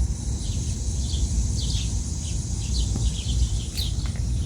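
Small birds chirping outdoors: short, high, falling chirps every half second or so, over a steady high hiss and a low rumble.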